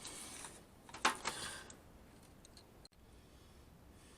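Faint scratching of a marker on the edge of sheet metal, with a few light clicks as the metal is handled; the loudest scratch comes about a second in.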